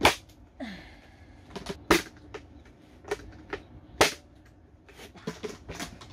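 Sharp hard knocks as a piece of camping gear is forced and knocked back into place: three loud cracks about two seconds apart, with lighter taps between them.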